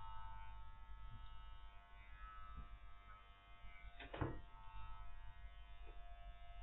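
Electric dog-grooming clippers running with a steady hum while the dog's coat is trimmed. A short knock about four seconds in.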